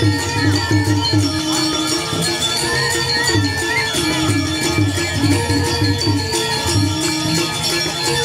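Traditional Balinese gamelan music: a repeating melodic figure over a steady low beat, with jingling cymbals.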